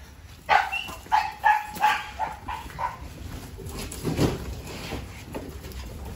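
Dog barking in a quick series of about seven short barks over the first three seconds, then quiet.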